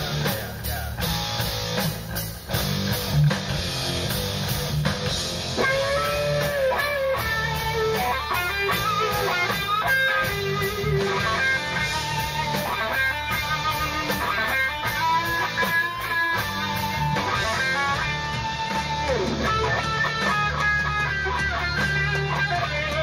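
Electric guitar playing a heavy rock part over a steady low bass-and-drum backing; about five seconds in it moves into higher lead lines with bent notes.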